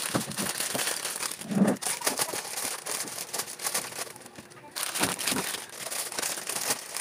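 Strips of plastic coffee sachets crinkling and rustling as they are handled, in irregular bursts with a short lull about four seconds in.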